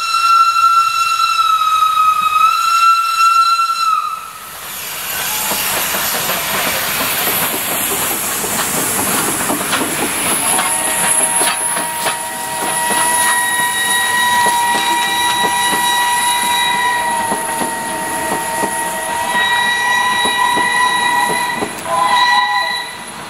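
Steam locomotive sounding a single-note steam whistle for about four seconds, then a loud hiss of steam venting. From about ten seconds in comes a long, steady multi-note whistle chord, broken briefly near the end.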